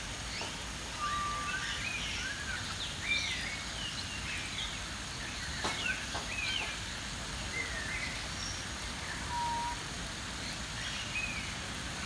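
Many short bird whistles and chirps from several birds, some sliding up or down in pitch, scattered over a steady background noise, with a single sharp click about halfway through.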